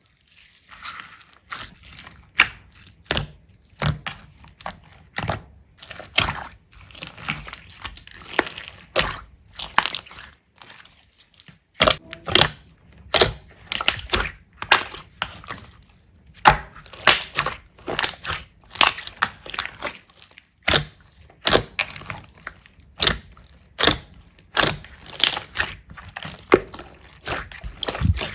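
Slime being squeezed and pressed, giving repeated crunchy crackles and pops in irregular clusters about once or twice a second.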